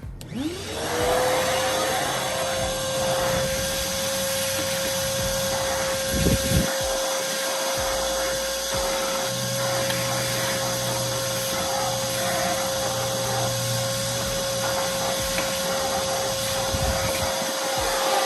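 Vacuum cleaner switched on, its motor whine rising to a steady pitch within about half a second and then running evenly. It is sucking up debris from around a truck's fuel filler neck area so that nothing falls inside.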